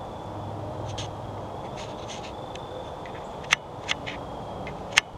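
Light rustling and a scatter of short, sharp clicks, the two loudest about three and a half and five seconds in, over a steady low background hiss with a faint thin high tone.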